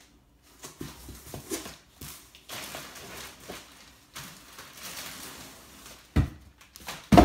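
Cardboard box flaps and a plastic-wrapped backpack rustling as the bag is pulled out of a shipping box, then two heavy thumps near the end as the box is swung away and the bag is set down.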